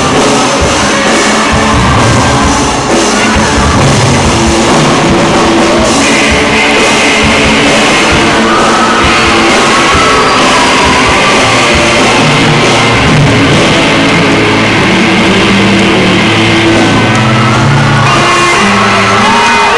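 Live rock band playing loud: electric guitars through amplifiers over a drum kit, continuous throughout.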